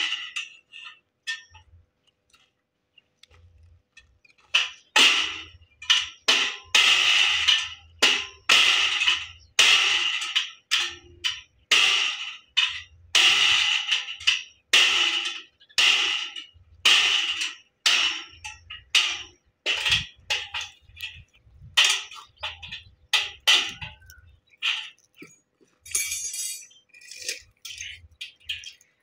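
Irregular series of sharp metal strikes on steel, each ringing briefly. After a few sparse hits in the first seconds they come about one or two a second, with a brief faster clatter about 26 seconds in.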